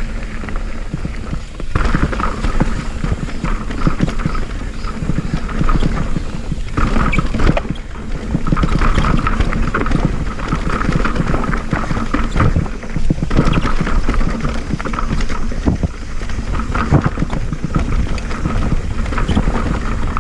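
Mountain bike descending a rough dirt trail: continuous clattering and rattling of the bike over rocks and roots, with the rushing noise of the tyres.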